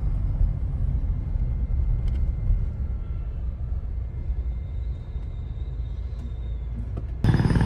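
Steady low rumble of a Mahindra Thar Roxx on the move: engine and road noise. About seven seconds in it breaks off abruptly as a louder sound takes over.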